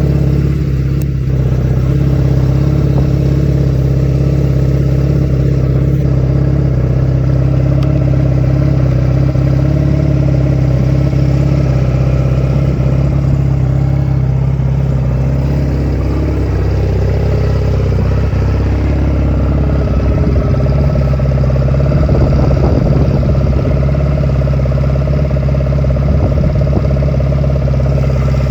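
Honda 250cc motorcycle engine idling steadily, with its pitch wavering slightly in the middle.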